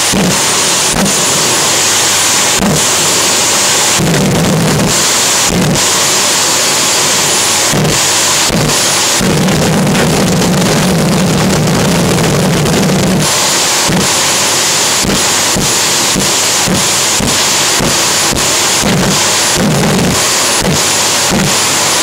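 Gas-turbine jet engine of a turbine jet boat running loud, with a steady high whine. Its afterburner flames up and pops, giving repeated sharp bangs, with heavier rumbling surges about 4 s in and from about 9 to 13 s in.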